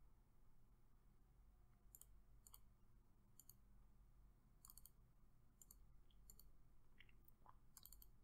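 Faint computer mouse clicks, several scattered through, with a quick cluster near the end, over a low steady hum of room tone.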